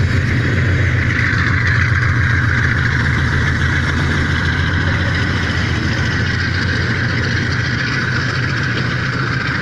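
Pakistan Railways diesel locomotives hauling a container freight train past below: a steady heavy engine rumble with a rushing noise of the train running over the rails, easing slightly in the second half.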